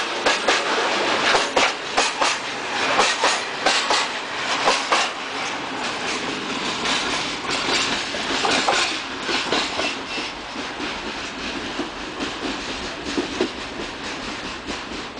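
Freight train of open wagons rolling past, its wheels clicking over the rail joints. The clatter thins out and fades as the end of the train passes and draws away.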